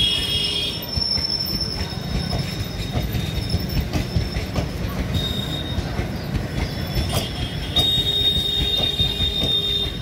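Passenger coaches of a departing Indian Railways express rolling past. The wheels give a steady low rumble, with irregular knocks over the rail joints and a high-pitched wheel squeal that comes and goes, held longest over the last two seconds.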